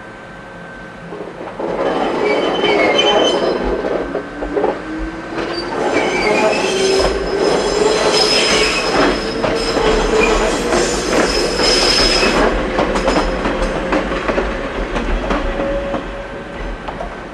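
Ichibata Electric Railway 2100 series two-car electric train moving slowly across the station's tracks: wheels squealing, wheels clacking over rail joints and points, and a whine rising in pitch over several seconds. It builds up about two seconds in and fades away near the end.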